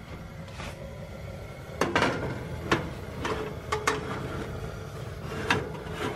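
Dishes clattering on a wire oven shelf as a ceramic dish holding a foil tray and a metal bowl are set in place and shifted: about six sharp knocks spread over a few seconds, the loudest about two seconds in, over a steady low rumble.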